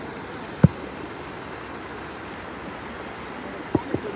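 Fast, shallow river current rushing around people wading across, a steady wash of water. A sharp knock sounds about half a second in, and two more come close together near the end.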